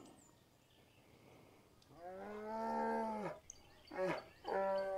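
A cow mooing: one long moo about two seconds in, a short one about four seconds in, and another starting near the end.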